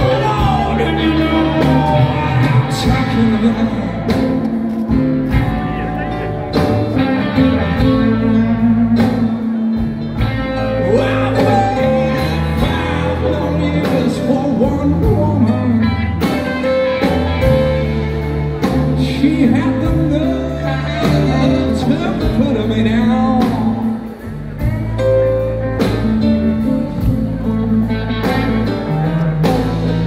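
A live blues-rock band playing, with electric guitars, keyboard and drums, heard from the audience. The music dips briefly in loudness about 24 seconds in.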